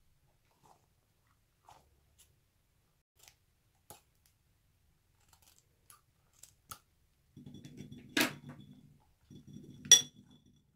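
A few faint snips of scissors cutting into a rubber stress ball full of water beads, then a low squishing of the rubber skin being pulled apart. Two sharp clinks on the glass bowl come about 8 and 10 seconds in; the second is the loudest and rings briefly.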